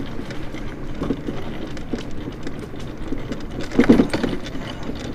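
Scooter rolling along a concrete trail: a steady rumble of tyres on the pavement, with rattling and scattered knocks and a louder thump about four seconds in.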